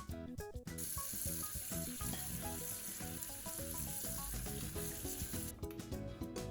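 Chicken gizzards sizzling as they fry in a hot pan: a loud, steady hiss that starts about a second in and cuts off suddenly near the end.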